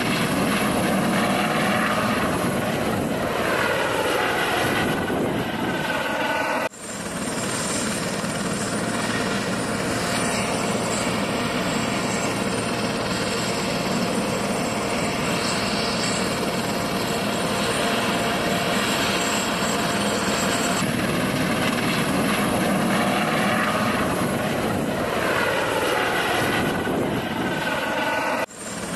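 Helicopter running on the ground: steady rotor and turbine engine noise with a high whine. It breaks off for a moment twice.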